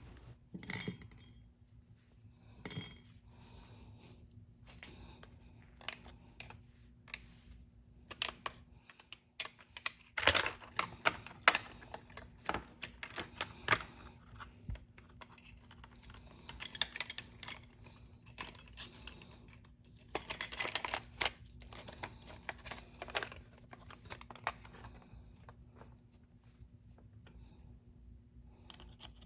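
Irregular small clicks and clinks of metal and plastic parts being handled and fitted together, the Lionel 397 coal loader's conveyor going back onto its tray, with busier clusters of clatter about ten and twenty seconds in. A faint steady hum lies underneath.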